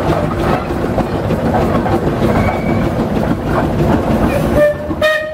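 Steam traction engine running as it moves along the street, with a steady mechanical clatter. A short, high-pitched tone sounds near the end.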